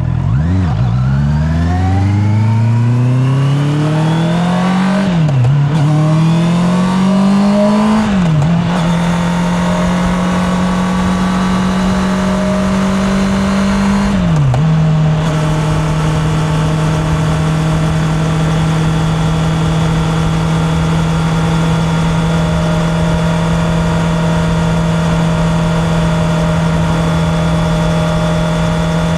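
Honda CB650R's inline-four engine pulling away and accelerating, its pitch rising through the revs with three quick drops as it is shifted up a gear about five, eight and fourteen seconds in. It then settles into a steady cruise at constant revs.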